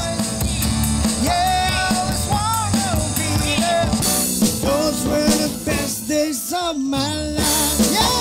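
Live band playing a rock and roll song: a man sings into a microphone over strummed acoustic guitars and an electronic drum kit. The accompaniment fills out with cymbals about four seconds in.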